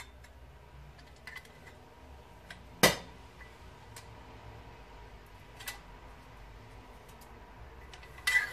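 Metal clanks from a stainless steel ricer press against a stainless steel mixing bowl while souring juice is squeezed out: one sharp knock about three seconds in, a few lighter clicks, and a quick clattering pair of knocks near the end.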